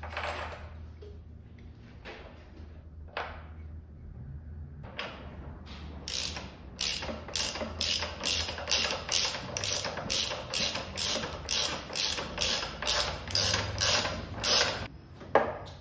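Hand ratchet wrench swung back and forth, its pawl clicking in a steady rhythm of about two strokes a second through the second half, after a few scattered knocks.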